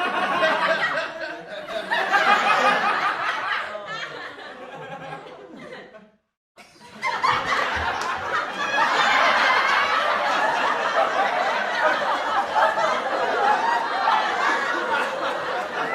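Recorded laughter played as sound effects: one laugh fades out, the sound cuts to silence for a moment about six seconds in, then a second, denser stretch of laughter follows.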